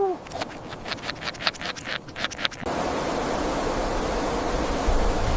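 A quick run of short, irregular clicks or chirps, then about two and a half seconds in a sudden cut to a steady rushing noise that carries on to the end.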